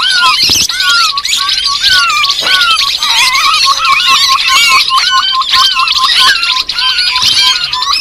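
Dense, loud chorus of grey-headed babbler calls, the kind used as a trapping lure: a fast string of short repeated whistled notes, several a second, under many overlapping chattering chirps.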